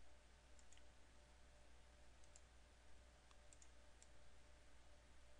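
Near silence: faint room tone with a few faint, sharp computer mouse clicks scattered through it.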